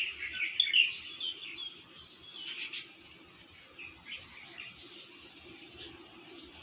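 Birds chirping: many short high chirps, busiest in the first two seconds, then scattered calls.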